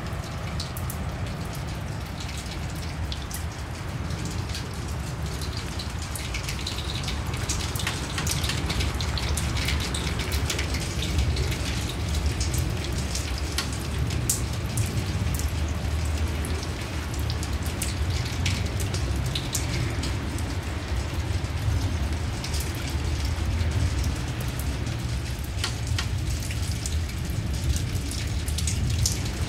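Wind rumbling steadily on the microphone, with many scattered sharp ticks of light rain.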